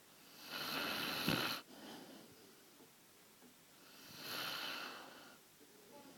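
American bulldog snoring in her sleep: two long snoring breaths, about three and a half seconds apart.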